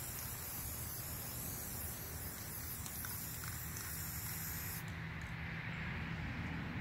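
Aerosol can of red spray paint hissing steadily as paint is sprayed onto skis, cutting off about five seconds in.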